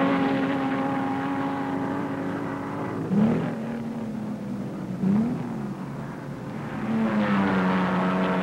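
1950s sports racing car engines at full throttle as cars pass one after another. Each engine note sags slowly in pitch, with quick rises in pitch about three and five seconds in. A louder engine note builds near the end.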